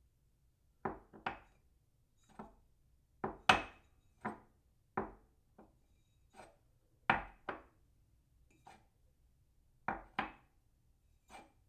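A cup set down on a saucer again and again: short, sharp clinks, often in quick pairs, about a second apart.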